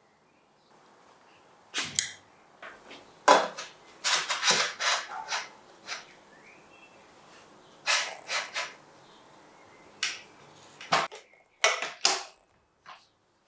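Sharp clicks and clacks of metal bike parts and a hex key being handled, single knocks and short clusters with gaps between, as a saddle clamp is fitted to a carbon seatpost.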